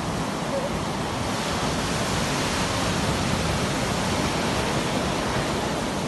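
Surf breaking on a sandy beach: a steady rushing wash of waves.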